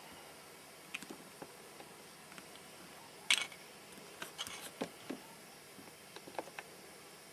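Camcorder handling noise: scattered small clicks and ticks over a steady hiss, the loudest click about three seconds in and a few more soon after.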